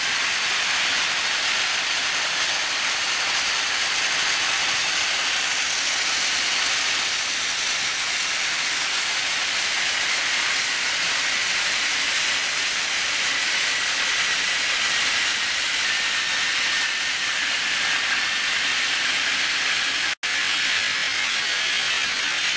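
Many battery-powered toy trains running at once on plastic track: a steady whirring hiss of their small motors and wheels, with no clear rhythm. It cuts out for an instant about twenty seconds in.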